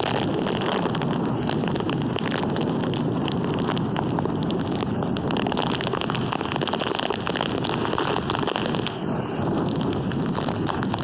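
Hurricane-force wind with driving rain: a loud, steady rushing that buffets the microphone, with constant crackling from rain and gusts.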